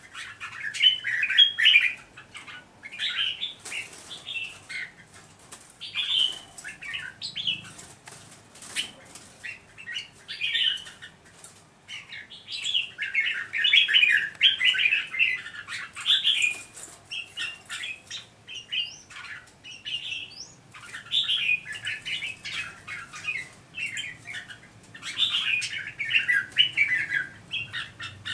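Two caged red-whiskered bulbuls singing at each other in repeated bursts of bright, chattering phrases, with short sharp clicks between the phrases.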